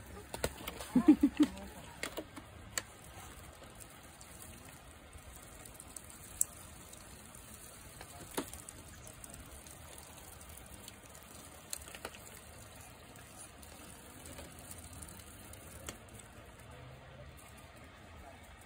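Muscovy ducks pecking superworms off gravelly ground: scattered sharp taps over a faint crackly background, with a brief cluster of low pulsed sounds about a second in.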